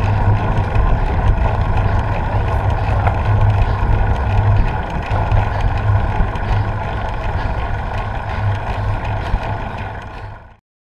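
Wind rumble and road noise on a bicycle-mounted camera's microphone as the bike rides up the road. The low buffeting rumble is steady, then fades out quickly near the end.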